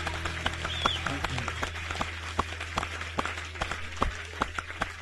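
Audience applauding after a song: scattered, distinct hand claps over a steady low hum, thinning slightly toward the end.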